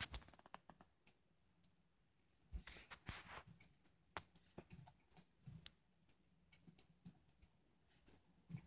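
Birds pecking and cracking seed on a feeder tray close to the microphone, a male northern cardinal among them: faint, irregular clicks and taps.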